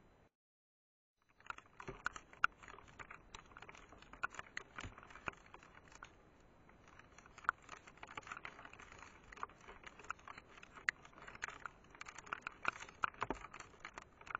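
Irregular sharp ticks and clicks, many per second, with a faint patter underneath: precipitation striking a trail camera's plastic housing on a night near freezing. It starts about a second in, after a brief silence.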